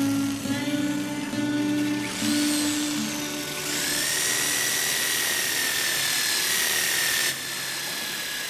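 Handheld corded electric power tool whining at high pitch as it works on a tree branch, run in short bursts and then a longer steady run that cuts off abruptly about seven seconds in. Low sustained music notes play under the first half.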